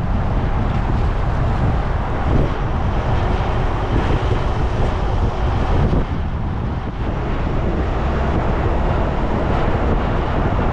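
Small boat under way, its motor running steadily under heavy wind buffeting on the microphone.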